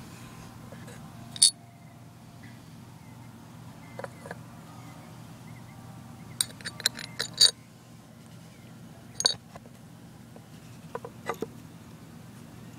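Sharp clicks and light clinks of small engine parts being handled as the valve cover comes off a small four-stroke engine and the rocker arms are worked on. The clicks come singly and in quick clusters, the loudest about a second and a half in and a rapid run around seven seconds.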